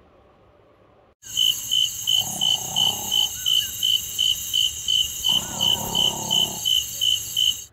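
Crickets chirping in a steady pulsing rhythm, about three chirps a second, cutting in suddenly about a second in. Two long low snores sound under the chirping.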